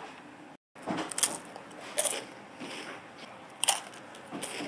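Crunchy bites into a Stick-O chocolate-filled wafer stick, with about four sharp crunches spread over a few seconds.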